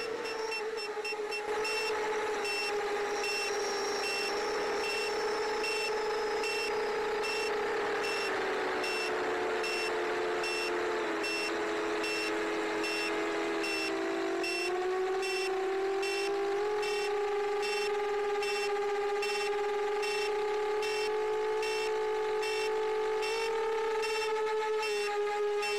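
Motors and propellers of a 7-inch FPV quadcopter (Emax Eco 2807 1300kv brushless motors on 6S) whining steadily, as picked up by the onboard camera. The pitch sags lower around ten seconds in and climbs back near fifteen seconds as the throttle changes. A faint high-pitched pulsing runs over it.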